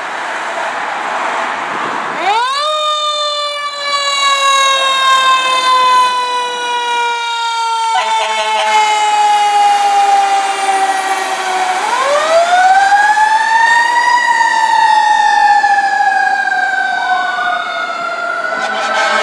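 Fire truck siren winding up three times, each time climbing quickly and then falling slowly in a long wail. Rough truck engine noise comes before the first wind-up.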